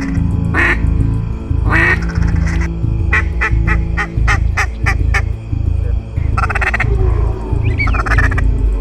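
Duck quacking over music with a steady low beat: two single quacks, then an evenly spaced run of about eight quacks. Near the end come a few short whistles that rise and fall.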